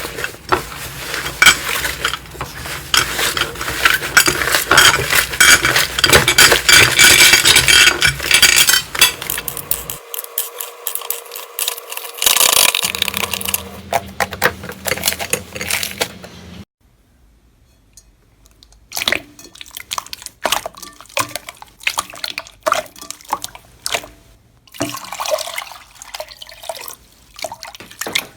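Slime being squeezed and poked by hand: dense wet clicking and squelching, loud for the first ten seconds or so, then broken by a short near-silent gap about two-thirds through before sparser squelches and pops.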